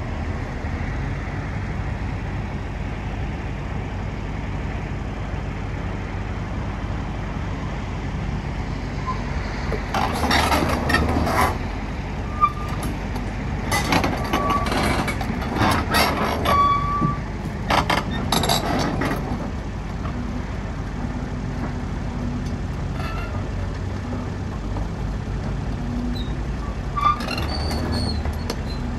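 Steady low rumble of heavy vehicle engines running. Louder noisy spells come about ten, fourteen and eighteen seconds in, with a few short high beeps.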